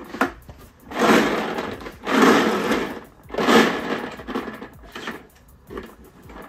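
Plastic lottery balls rattling against one another in a clear plastic draw drum, in three loud bursts about a second long each, then a lighter clatter as a hand picks through them.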